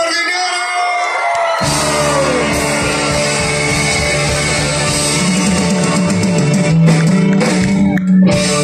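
Live band playing through a PA: singing over electric bass, percussion and guitar. The bass and drums drop out for about a second and a half at the start, then the full band comes back in.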